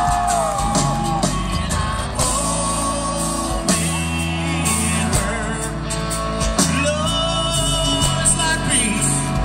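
Live country band playing a passage of the song, with a steady bass line that changes notes every second or two under melodic guitar lines.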